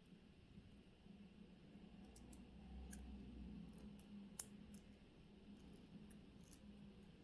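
Near silence broken by a few faint, sharp clicks of small metal watchmaker's tools handling watch movement parts; the sharpest comes a little past the middle.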